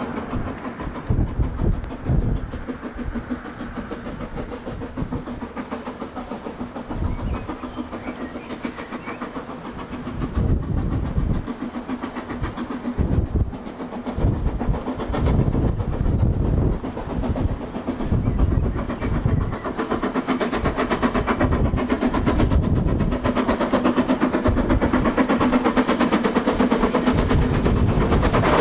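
A steam locomotive and its train running, getting louder from about two-thirds of the way through as it draws nearer.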